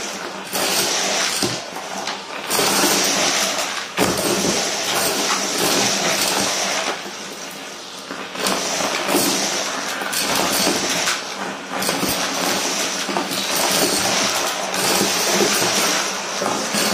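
Vacuum cleaner running through a metal wand, sucking up confetti from a carpet, with small pieces clinking and crunching as they rattle through the metal tube. The sound swells and drops several times as the wand is moved at the pile.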